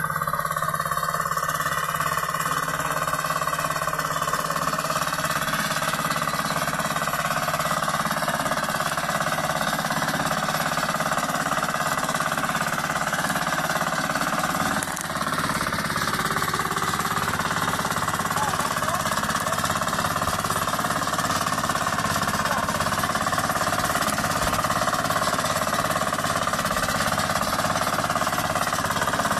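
Small engine of a walk-behind tiller running steadily as it cuts a furrow through soil, with a fast pulsing beat and a brief dip about halfway.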